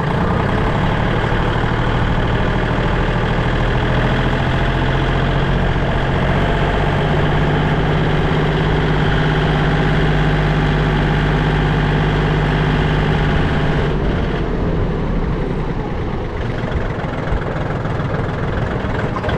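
Kubota L2650's three-cylinder diesel engine chugging steadily as the tractor drives along in fourth gear. About fourteen seconds in, the engine note drops and gets slightly quieter.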